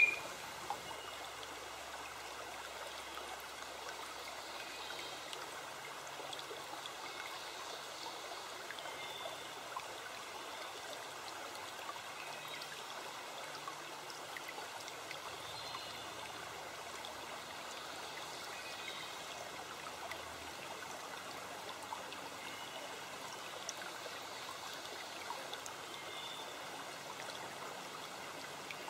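Steady flowing stream: water running and trickling at an even level, with a few small splashes.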